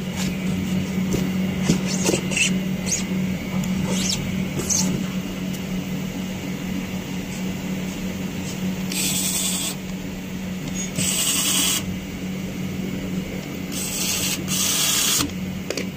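Cordless electric screwdriver driving screws into a watch winder's plastic panel in four short runs in the second half, over a steady low hum. Clicks and knocks of the panel being handled come first.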